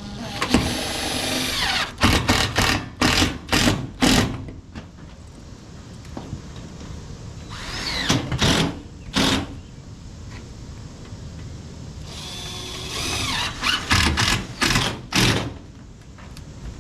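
Power drill driving screws in three spells: each starts with a longer run as the motor's pitch shifts under load, then several short squeezes of the trigger as the screw is seated.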